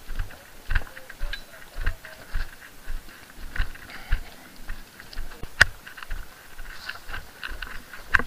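Footsteps of a person walking briskly on a rocky dirt trail, crunching and thudding about twice a second, with one sharp click about five and a half seconds in.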